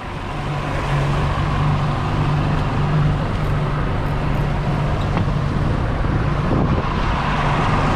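Outboard motor running steadily at trolling speed, a low even hum, with the boat's wake rushing and splashing behind the transom.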